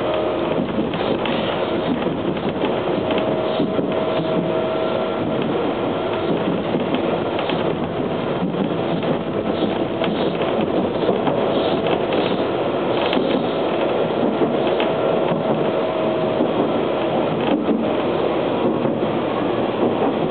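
Inside a TTC H4 subway car running through a tunnel: a steady rumble and hiss of wheels on rail, with irregular clicks and knocks and a faint steady whine underneath.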